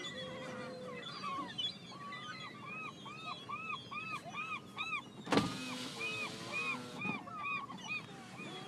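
A flock of gulls calling, one bird giving a rapid series of repeated arched calls, about three a second, over the scattered cries of others. A single loud thump about five seconds in.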